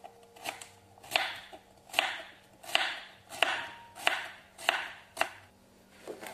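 Kitchen knife slicing a carrot on a wooden cutting board, each cut ending in a knock on the board. About eight cuts at a slow, even pace, roughly one every 0.7 seconds.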